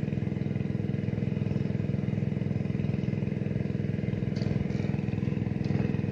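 An engine running steadily at constant speed, an even low drone that does not change. A few faint ticks come over it about four to six seconds in.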